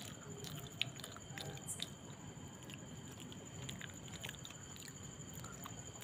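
People chewing rice and dal while eating by hand from steel plates: quiet mouth sounds with scattered small clicks, the sharpest about a second in.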